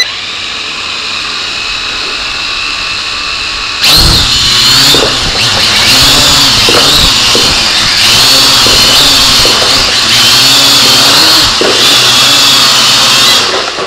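Kaideng K70C quadcopter's four motors and propellers spinning at low speed, then jumping to a louder whirring buzz with a wavering pitch as the throttle is raised about four seconds in. Near the end the motors shut off and the sound dies away. This is a start-up test of the newly assembled quadcopter, with all propellers spinning properly.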